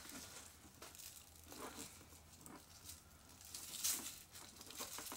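Faint rustling and crinkling of paper wrapping being pulled off the ends of a leather handbag strap, with a few soft knocks; the clearest comes about four seconds in.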